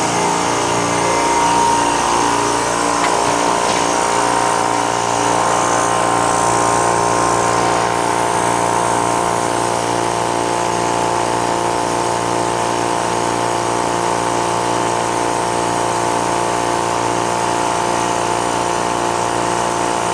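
Small water-cooled portable high-pressure air compressor running steadily with a loud, high-pitched whine, almost 110 decibels on a sound meter.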